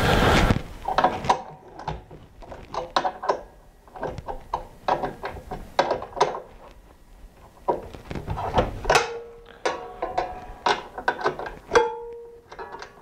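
Metal clicks, clinks and rattles from a DeWalt miter saw's arbor bolt, flange washer and blade as they are unscrewed and handled by hand. There are a couple of short metallic rings near the middle and near the end, and a brief burst of noise at the very start.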